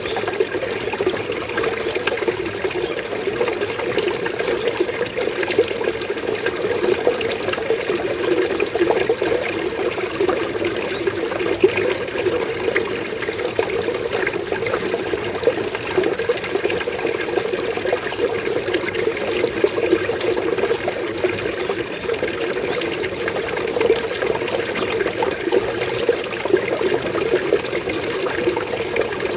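Running water gurgling and burbling steadily, with faint high bird calls every several seconds.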